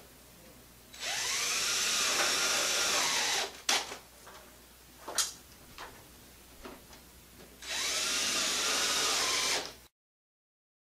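Cordless drill driving screws through the face of an aluminum door frame's strike jamb: two runs of about two and a half and two seconds, the motor's pitch rising and falling as each screw goes in, with a few sharp knocks between them.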